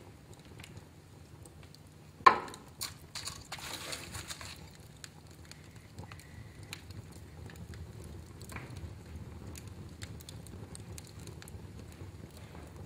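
Wood fire burning in a fireplace: a low rumble of flames with scattered crackles, a sharp loud pop about two seconds in followed by a second or two of hissing crackles, and a faint brief whistle near the middle.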